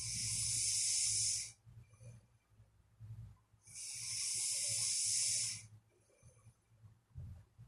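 A sleeping person snoring with loud, airy hissing breaths: two long breaths of about two seconds each, roughly four seconds apart, over a faint low rumble.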